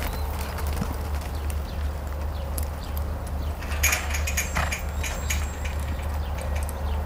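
Hoofbeats of a horse and a cow moving across a dirt pen as the horse works the cow, scattered knocks over a steady low rumble, with a cluster of sharper knocks about four seconds in.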